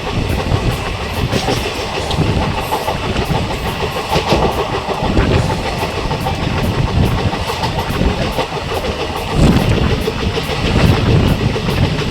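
Passenger train coach running at speed: a steady rumble and rattle of wheels on the track, with the clickety-clack of rail joints.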